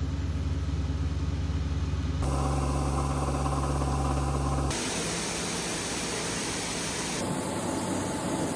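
Farm machinery engines running steadily at idle, in several short segments that change abruptly from one to the next.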